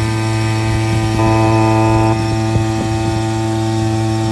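A loud, steady low hum held at one fixed pitch, growing brighter for about a second starting roughly a second in.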